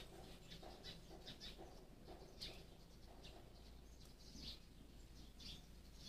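Faint, scattered bird chirps, short high notes coming several times a second over a quiet background.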